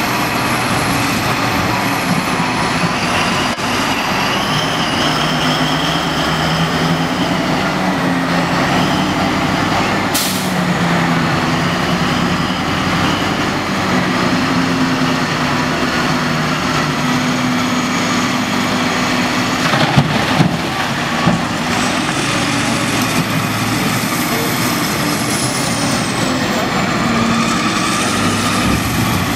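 Heavy diesel engines of a Caterpillar 992G wheel loader and a Caterpillar 777C haul truck running under load as they manoeuvre, the engine pitch shifting, with a high whine that rises and falls. A short hiss comes about ten seconds in, and a burst of loud knocks about twenty seconds in.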